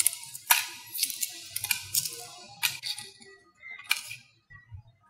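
Brown shell of a hard-boiled egg crackling and snapping as it is peeled off by hand: a quick, irregular run of sharp crackles that thins to a few small clicks after about four seconds.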